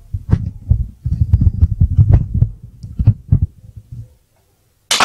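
Low rumbling buffeting on a handheld phone's microphone, with a few short knocks. It cuts out to silence after about four seconds, and a single sharp crack comes at the very end.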